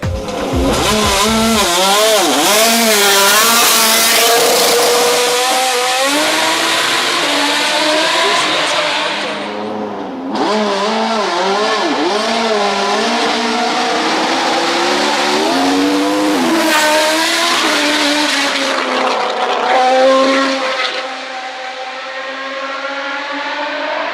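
BMW 320 hillclimb race car with a 3.5-litre, 570 hp engine, run hard at high revs. Its pitch swings up and down again and again as the throttle is lifted and reapplied through gears and corners. There is a short dip about ten seconds in.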